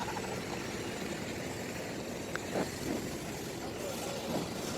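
Steady engine running in the background, with a few faint short sounds over it.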